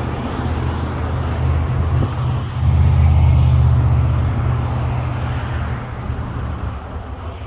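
Low, steady engine drone of a motor vehicle that swells loud about two and a half seconds in, then fades away toward the end.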